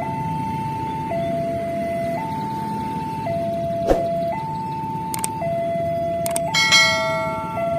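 Railway level-crossing warning alarm sounding its two-tone electronic signal, switching between a higher and a lower tone about once a second, the warning that a train is approaching, over road traffic noise. A short horn blast sounds over it about two thirds of the way in.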